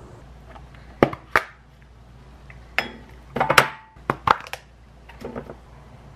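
Kitchen prep clatter: about half a dozen sharp knocks and clinks as dishes and utensils are set down and handled on a counter, one of them ringing briefly.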